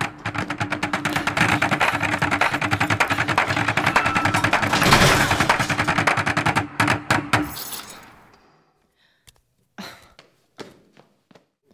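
Action music: rapid, driving percussion over a held low note that stops abruptly about two thirds of the way through. A few faint, separate knocks follow.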